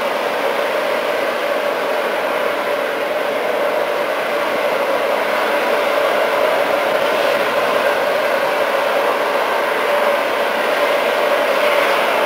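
Small steam locomotive letting off steam: a loud, steady hiss of steam blasting out under pressure low at the front of the engine.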